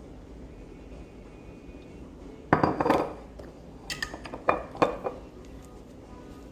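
Dishes and cutlery handled on a table: a burst of clattering knocks about two and a half seconds in, then three sharper clinks over the next two seconds.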